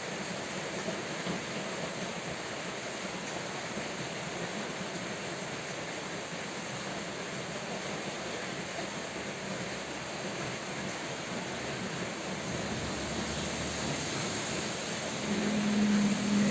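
Steady rain falling, an even hiss. Near the end a low hum comes in and grows louder over it.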